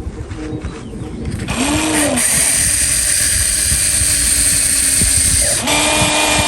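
Electric motors of a Huina 1593 radio-controlled model excavator whining as it works, the pitch rising and falling as motors start and stop, over a constant low clatter. A high steady whine holds through the middle, and a new motor tone rises and holds near the end.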